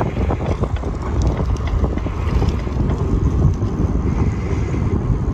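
Wind buffeting the microphone of a camera carried on a moving bicycle: a steady, dense low rumble.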